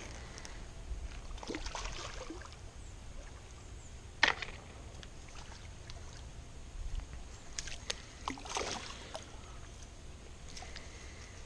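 Water splashing and sloshing as a hooked carp is brought over a landing net and netted at the edge of the pond, in irregular bursts with one sharp slap about four seconds in. A low wind rumble on the microphone runs underneath.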